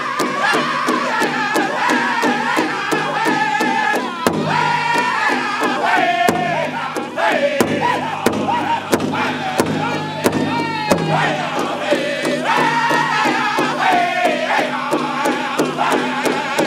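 Powwow drum group singing a men's chicken dance song: several voices in high, wavering, sliding melody lines over steady beats on one large shared drum, about three beats a second.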